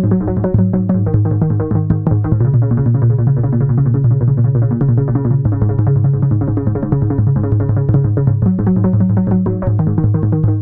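Electronic synthesizer music: quick, rapidly repeating synth notes over a steady low bass line.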